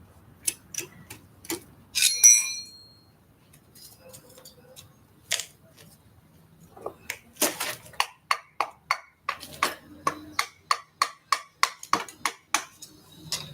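Metal clinks and taps from tools and parts being handled on a dismantled motorcycle engine. A bright, ringing metallic clink comes about two seconds in. Past the middle there is a quick run of taps, about three a second, some of them ringing.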